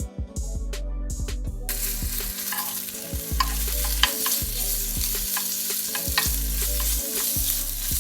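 Bacon and bread frying in a hot pan: a steady sizzle with scattered pops that comes in about one and a half seconds in, over faint background music.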